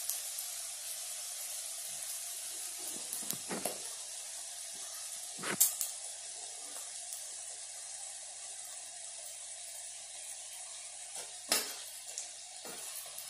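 Oil sizzling steadily in an iron kadai as a folded egg-filled paratha shallow-fries, with a few sharp clicks of the steel spatula against the pan.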